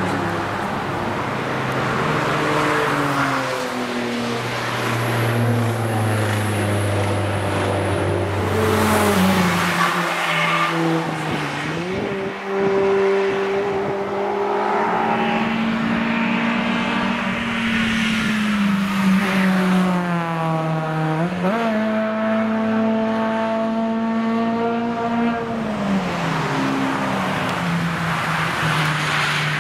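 Honda cars driving past on a race track, several engines heard at once, their revs falling under braking and jumping up sharply at downshifts, about a third and two-thirds of the way through, then holding and fading as the cars pull away.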